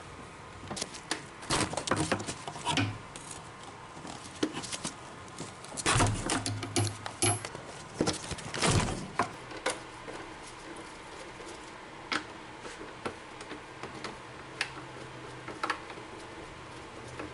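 Metal hand tools and parts clinking and knocking in irregular clusters, with the busiest clatter in the middle and a few single sharp ticks after it.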